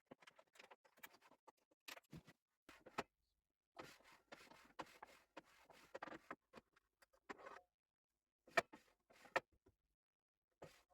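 Faint, scattered handling noises: short clicks, taps and scrapes at irregular intervals, with brief pauses of near silence between them.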